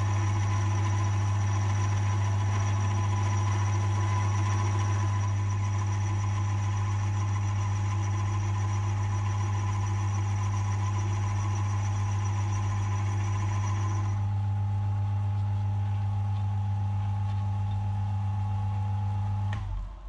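Mill drill running steadily with its cutter in a bore in the tool-holder casting, a deep motor hum under a higher steady whine. The higher whine drops out about 14 seconds in, and just before the end the machine is switched off and the sound falls away.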